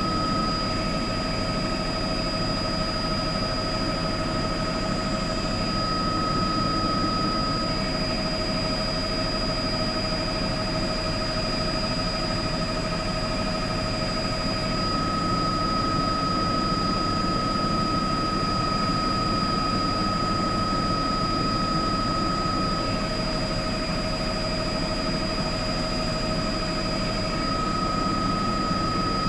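Turbine news helicopter in flight, its engine and rotor running steadily as picked up by the onboard audio, with a high whine that switches back and forth between a lower and a higher pitch several times.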